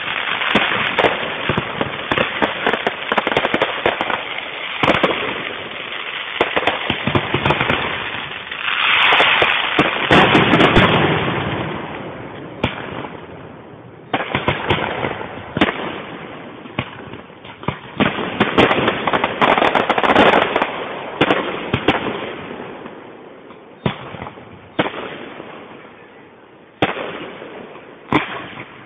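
Fireworks display: aerial shells bursting one after another with crackling. The bangs pile up into a dense, loud stretch about nine to eleven seconds in, then come more spaced out near the end.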